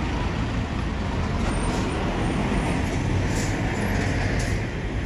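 Outdoor ambience: a steady low rumble with a few faint ticks.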